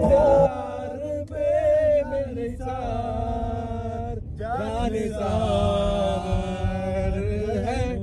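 Men singing a chant-like Hindi devotional song together, with a brief break about four seconds in and a steady low rumble underneath.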